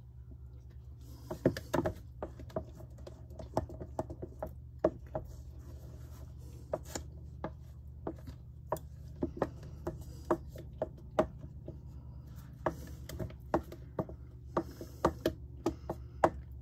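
Wooden spoon stirring pie filling in a stainless steel mixing bowl, knocking and scraping against the bowl's sides in irregular clicks that begin about a second in.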